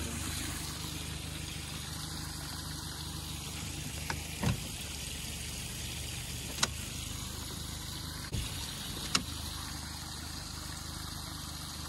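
A small motor hums steadily with water trickling. Four sharp knocks sound in the middle of the stretch, about four and a half, six and a half, eight and a half and nine seconds in.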